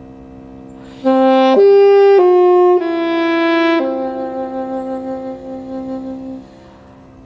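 Saxophone playing a slow phrase of four or five notes over a cello holding a low note. The phrase ends on a long note with vibrato that fades out after about six and a half seconds.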